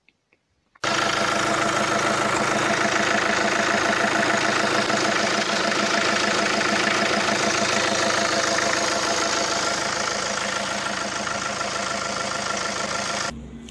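Renault 1.5 dCi (K9K) four-cylinder turbodiesel idling with the bonnet open, an even, steady diesel clatter. It starts about a second in and cuts off abruptly near the end.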